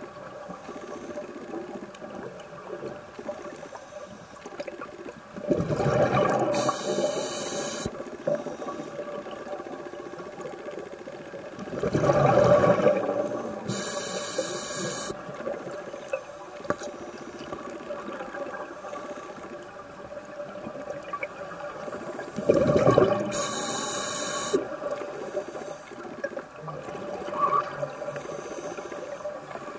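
Scuba breathing through a regulator underwater: three breaths, about eight seconds apart, each a rushing gurgle of bubbles followed by a high hiss from the regulator.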